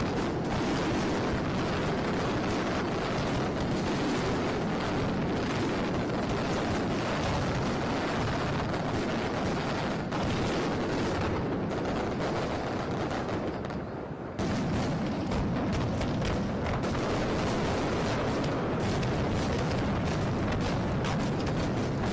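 Aerial fireworks display: a dense, near-continuous barrage of shell bursts. There is a brief lull about two-thirds of the way through, then the barrage picks up again abruptly.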